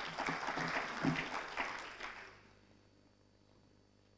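Audience applauding, fading out about two seconds in.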